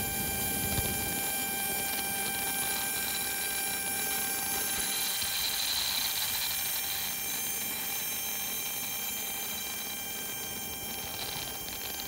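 Steady high whine of an Embraer jet's auxiliary power unit, a stack of constant tones that never changes pitch. Underneath it runs the fainter roar of an Airbus A320's engines at take-off thrust, loudest about halfway through and easing off toward the end.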